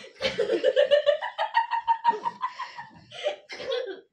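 A person laughing in repeated bursts, the pitch rising and holding high a little over a second in.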